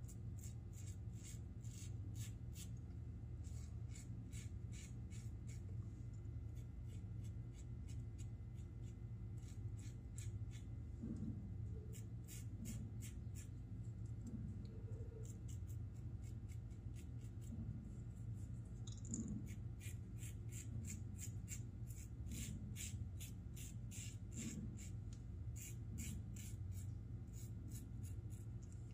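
Raw Shaving double-edge safety razor with the mild plate scraping through lathered stubble in short, crisp strokes, several a second in runs with brief pauses between them, over a steady low hum.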